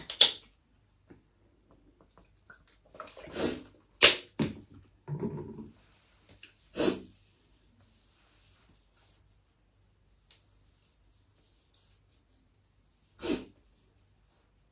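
A woman sniffling and breathing unsteadily, as in quiet crying: about six short sniffs and breaths, a couple with a brief voiced catch, separated by quiet gaps, with one more near the end.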